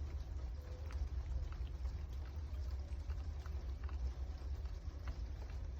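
A steady low rumble with faint, irregular small clicks over it, which fit a cat chewing food.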